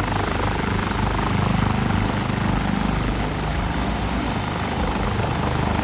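Rescue helicopter's rotor and engine running steadily and loudly, close by.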